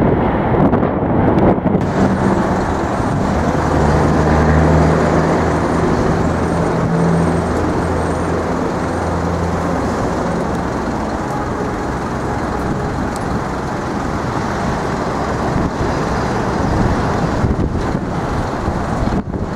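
Road traffic on a city street, a steady rush of passing vehicles. A vehicle's low engine drone stands out for several seconds in the first half, then fades.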